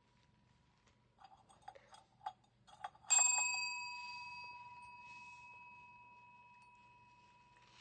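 A few light taps and clicks, then a bell struck once about three seconds in, ringing on with a clear tone that slowly fades. A cat is ringing it to ask for a treat.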